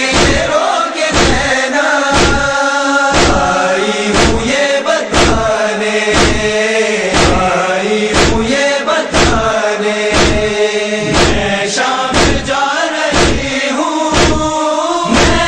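A chorus of voices chanting a noha, an Urdu lamentation, in a held melody without clear words. Sharp, even beats about twice a second keep time under the chant, the rhythm of matam: hands beating on chests.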